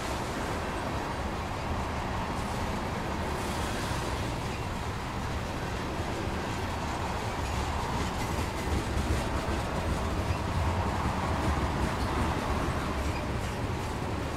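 Tank cars of a CN freight train rolling slowly past: a steady rumble of steel wheels on rail that grows a little louder about halfway through.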